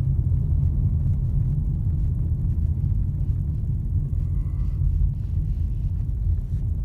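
Vehicle driving down a road, heard from inside: a steady low rumble of engine and road noise.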